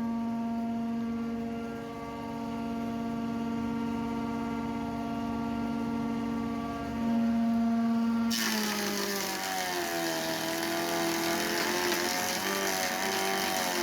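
Woodworking power saw running steadily, then cutting into wood about eight seconds in: a loud hiss of cutting joins the motor, and its pitch wavers and dips under the load.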